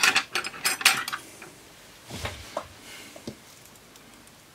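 Metal hand tools clattering and clinking for about a second as they are rummaged through and one is picked up, followed by a few softer taps and knocks.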